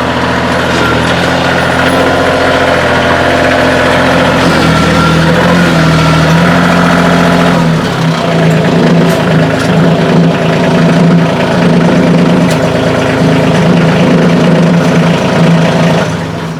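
Kioti CK2610 compact tractor's three-cylinder diesel engine running steadily, its note shifting a couple of times. It stops abruptly near the end.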